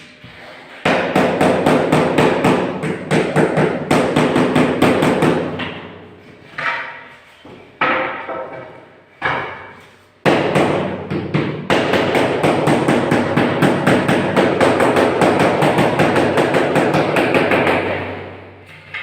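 Rapid, repeated tapping blows at several a second, in two long runs with a few single knocks between: a marble floor tile being tapped down to bed it into the mortar.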